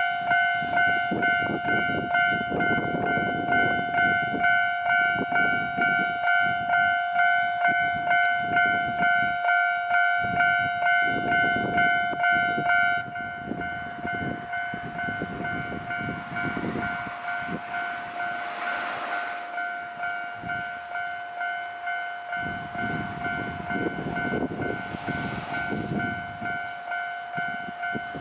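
Japanese railroad crossing alarm ringing its electronic 'kan-kan' bell, a ringing tone repeated about twice a second. About 13 seconds in it drops to a noticeably quieter, duller ring. Underneath, a rumbling, rattling noise rises and falls several times.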